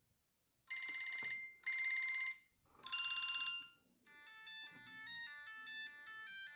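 Siemens CXT65 mobile phone playing its ringtones. A ringing tone sounds three times, then about four seconds in a different, quieter melody ringtone of quick stepping notes begins.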